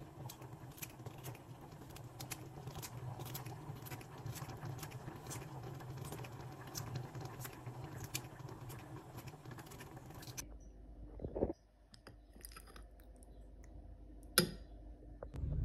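Kitchen scissors snipping a carrot into pieces, crisp snips about twice a second. After that stops, a thump and then a single sharp clink near the end.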